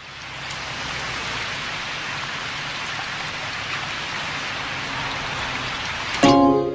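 Steady rain-like hiss that fades in at the start of the song's intro. About six seconds in, the music enters abruptly with loud sustained string-like chords.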